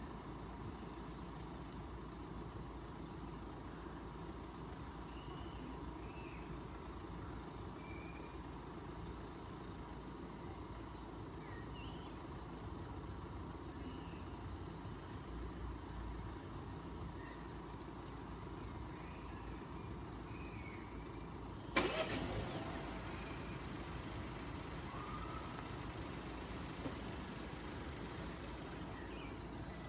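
Quiet outdoor background at a rural level crossing: a steady low rumble and hiss with scattered faint high chirps. About two-thirds of the way through, a sudden loud bump or buffet cuts in and fades over about a second.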